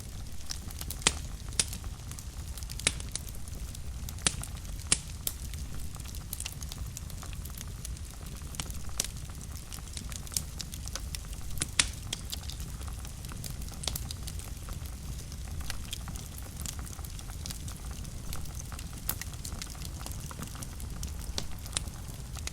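Wood fire burning in a fireplace, crackling with sharp pops scattered irregularly, several of them loud, over a steady low rumble of the flames.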